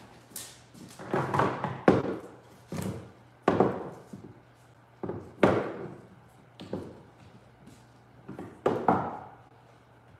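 Irregular thunks and knocks, about a dozen, as chunks of wood are handled, turned and set down on a plastic-sheeted worktable.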